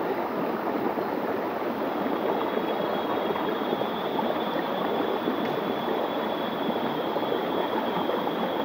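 Small stream running over a rock shelf in a steady rush of water, with a faint, high, steady whine joining about two seconds in.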